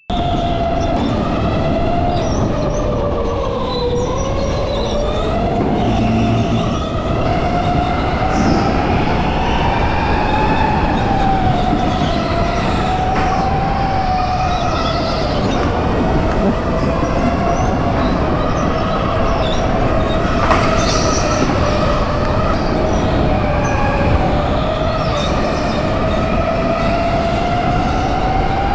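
Electric go-kart's motor whining, heard from on board, its pitch rising and falling with speed through the corners over a steady noisy rumble from the kart.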